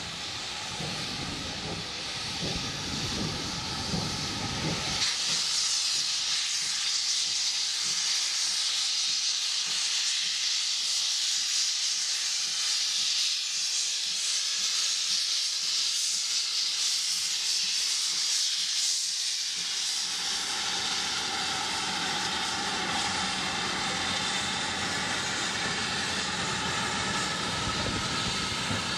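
Manor-class 4-6-0 steam locomotive No. 7828 running past with its cylinder drain cocks open: a loud, steady hiss of steam from about five seconds in. About two-thirds through the hiss gives way to the rumble of its passenger coaches rolling by on the rails.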